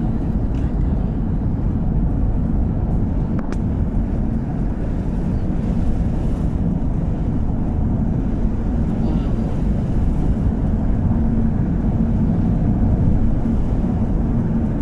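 A car driving, heard from inside the cabin: a steady rumble of engine and tyre noise, with one light click about three and a half seconds in.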